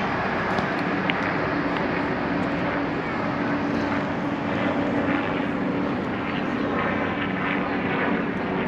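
Steady engine drone with a constant low hum, over outdoor noise.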